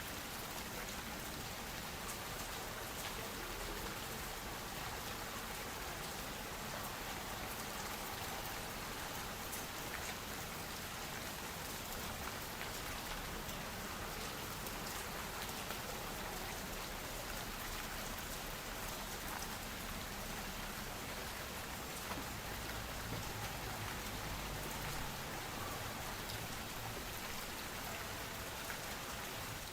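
Steady rainfall: an even hiss of rain with many small drop ticks.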